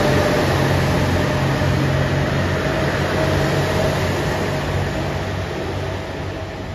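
JR Shikoku 2700 series diesel limited express train pulling out of the station: its diesel engines run with a steady low drone and a thin steady tone, fading slowly as the train moves off.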